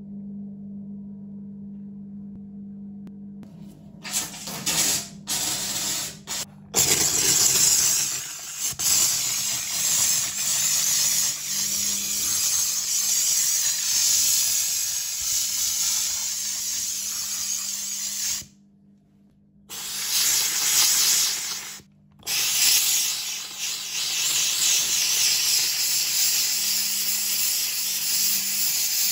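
Kärcher SC3 steam cleaner jetting steam in a steady loud hiss that starts about four seconds in, after a low steady hum, and cuts out briefly a few times.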